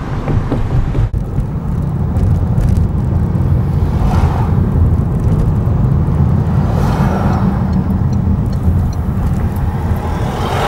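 Steady low rumble of a car driving, heard from inside it. Other vehicles pass a few times, including an oncoming lorry about six or seven seconds in.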